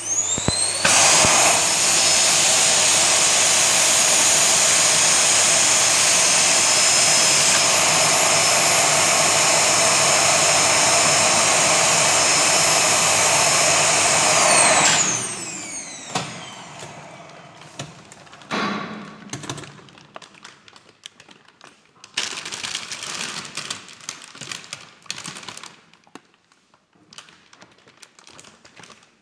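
Vacuum cleaner motor switched on, whining up to speed and running with a loud steady rush of air for about fourteen seconds, then switched off and winding down with a falling whine. After that come intermittent rustling and handling noises.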